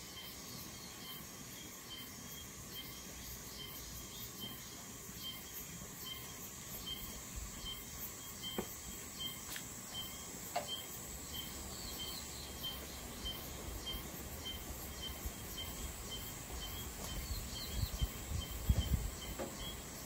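Outdoor natural ambience: a short high chirp repeats evenly two to three times a second over a steady high hiss. A few sharp clicks come midway, and low rumbling bumps near the end.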